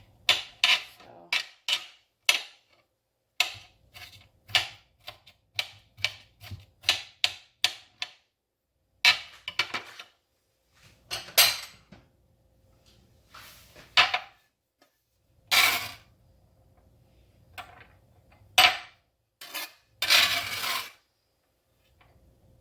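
Kitchen knife chopping onion finely on a cutting board: a quick run of sharp taps, about three a second, then scattered single knocks and a longer scraping sound near the end.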